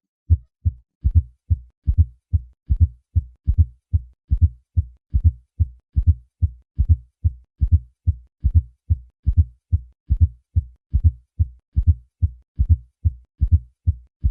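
Heart sounds heard through a stethoscope: a steady triple rhythm of low-pitched thuds, a fourth heart sound (S4 gallop) coming just before the first and second heart sounds in each beat. A fourth heart sound is a sign of a stiff, non-compliant ventricle.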